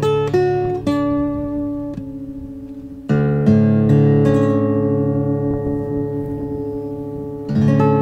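Background music: a guitar playing slow plucked notes, with a fuller chord struck about three seconds in that rings on.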